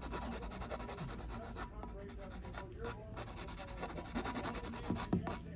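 Nail file rasping across artificial fingernails on a practice hand, in rapid, even back-and-forth strokes.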